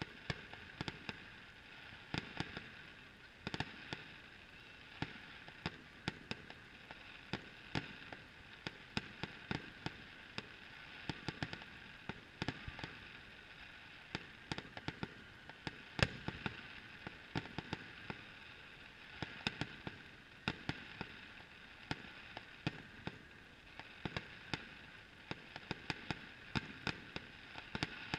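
Distant fireworks: an irregular run of sharp pops and crackles, several a second, with one louder bang a little past halfway.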